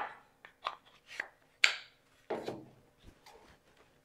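Wooden frame segments handled and butted together on a metal saw table while they are test-fitted: a string of light wood knocks and brief scrapes, the sharpest right at the start and fainter ones near the end.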